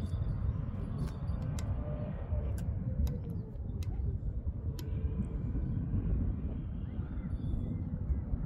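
Wind buffeting the microphone outdoors, a steady low rumble, with a few faint sharp clicks.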